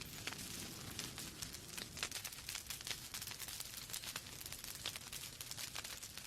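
Wood fire burning in a fireplace: logs crackling and popping with frequent sharp snaps over a steady low hiss.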